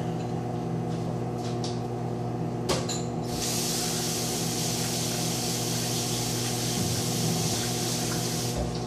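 A click, then water running from a kitchen tap into the sink for about five seconds before it is shut off, over a steady low hum.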